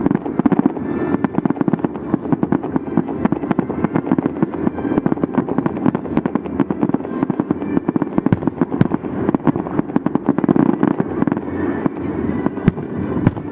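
Fireworks salute: a dense, unbroken barrage of bangs and crackling.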